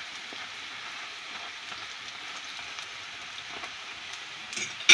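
Oil sizzling steadily in a frying pan as egg-batter sausage fritters fry, with a short sharp clatter near the end.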